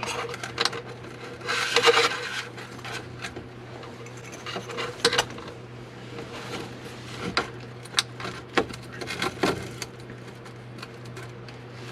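Retaining nut being threaded onto the back of a dash-mounted USB charger socket: scattered small clicks and rubbing of plastic parts handled up close, with a longer rubbing noise about two seconds in, over a steady low hum.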